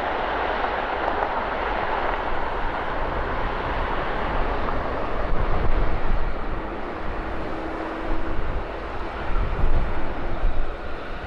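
Jet airliner engine noise: a broad steady rush with a deep rumble that swells and wavers in the second half.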